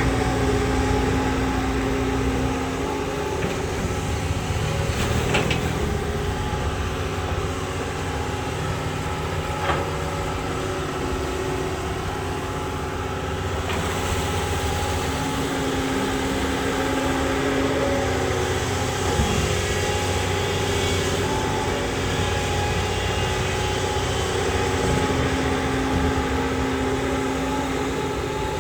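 Diesel engine of a Doosan long-arm excavator running steadily as the machine digs and unloads mud, its pitch shifting now and then as the load changes. A few brief clicks or knocks stand out over it.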